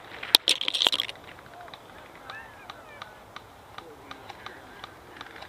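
A quick rattle of sharp clicks and cracks in the first second, the loudest part, in keeping with an airsoft rifle firing a short burst. Faint scattered ticks and a few faint chirps follow.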